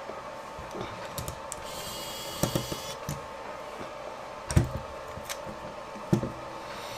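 Scattered light clicks and taps of small screws and a tiny FPV camera body being handled on a silicone work mat, with sharper knocks about four and a half and six seconds in. A faint steady hum runs underneath.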